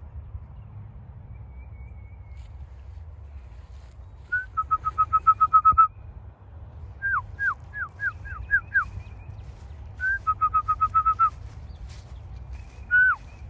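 A person whistling to call homing pigeons into the loft: a short rising note and a quick run of repeated notes, a set of falling slides, the same run again, and a last falling slide near the end.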